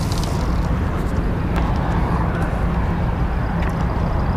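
Steady low rumble of wind buffeting the microphone, with a couple of faint brief clicks.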